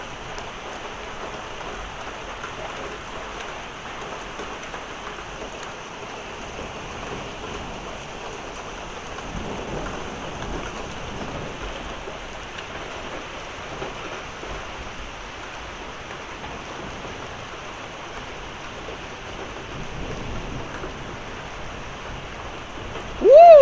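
Steady hiss of heavy rain with small pea-sized hail coming down. At the very end, a short loud exclamation that rises and falls in pitch.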